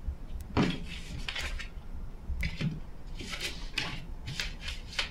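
Books and papers being handled and slid about on a wooden desk: irregular rustling and rubbing strokes with light knocks, the loudest knock a little over half a second in.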